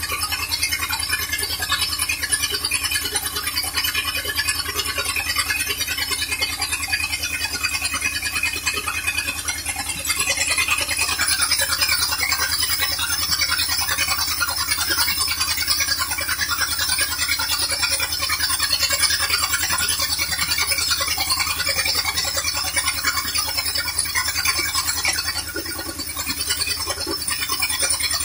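1974 Condor II motorhome's carbureted gasoline engine idling steadily, running smoothly.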